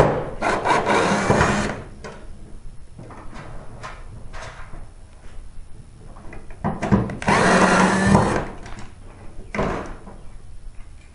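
Cordless drill/driver running in two short bursts, backing out the two screws that hold a tanning-bed ballast to its sheet-metal frame: one just after the start, the second about seven seconds in. Small clicks of handling come in between.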